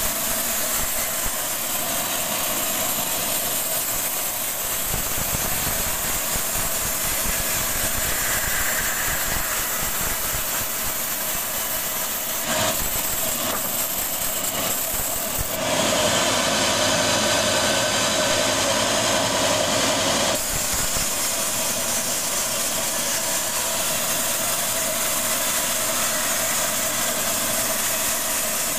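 A band sawmill running steadily, its blade sawing lengthwise through a long rambutan log. The sound gets louder for about five seconds a little past the middle.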